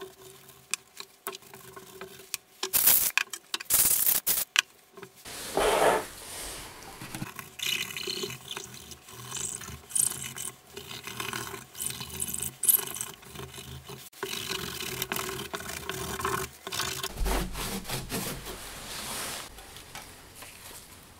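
A hand tool rubbing and scraping over a laptop keyboard's thin metal backplate as residue is cleaned off it, in uneven strokes. A cluster of sharp knocks and clicks comes a few seconds in.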